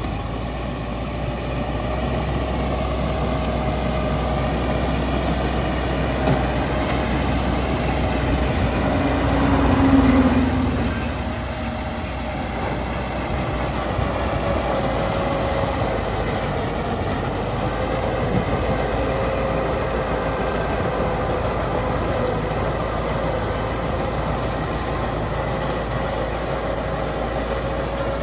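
Heavy construction machine's diesel engine running steadily, swelling louder for a moment about ten seconds in, with a wavering whine over the rumble.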